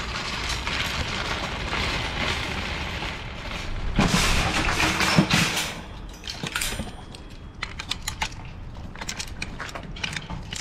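Shopping trolley rattling as it is wheeled over pavement, then a louder metal clatter with thumps about four seconds in as it is pushed into place, followed by lighter scattered clicks and rattles.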